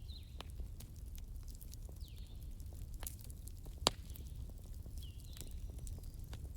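Campfire crackling, with scattered small pops and one sharp, louder pop about four seconds in, over a low rumble. A bird calls with short gliding chirps every couple of seconds behind the fire.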